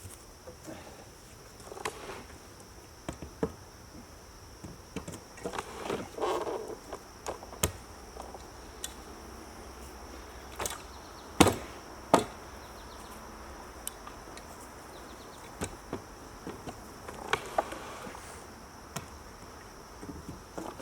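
Irregular knocks, clunks and scrapes of a boulder being levered along on a ratchet rock sled, the two loudest knocks about eleven and twelve seconds in. A steady high insect drone runs underneath.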